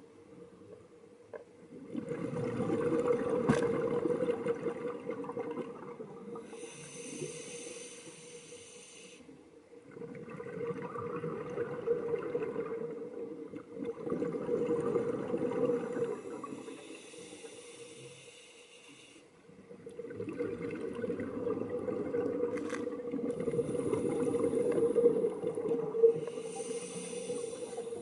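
Scuba diver breathing through a regulator in slow cycles: each breath is a hissing inhale through the demand valve followed by a longer, louder rumble of exhaled bubbles. About three breaths are heard, with a steady low hum underneath.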